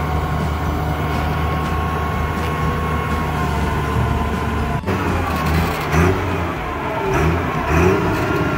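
Cummins NTA-855 diesel engine of a 1987 Dresser 550 wheel loader running at a steady speed, then revving up and down from about halfway through as the loader moves.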